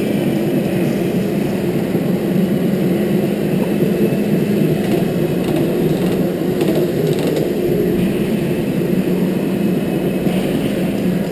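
Indoor rental go-kart being driven at speed, picked up by a helmet-mounted camera: a steady drive hum with rushing noise over it.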